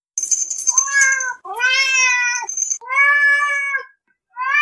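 Domestic cat meowing: four drawn-out meows in a row, the last one shorter, with a thin high tone over the first.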